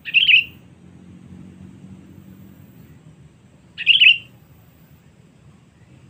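Sooty-headed bulbul giving two short calls about four seconds apart, each lasting under half a second.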